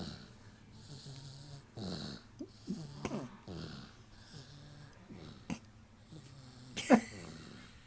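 Snoring: repeated wheezy breaths, each with a low rattle, and one louder short snort near the end.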